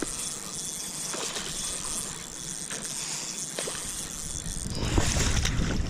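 Outdoor river ambience: a steady hiss of moving water with a few faint splashes or handling ticks. About five seconds in, wind starts rumbling on the microphone and the level rises.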